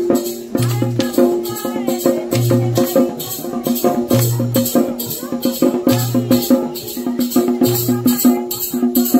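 Music with a quick, steady percussion beat over sustained pitched tones, and a low pulse repeating about every second and three-quarters.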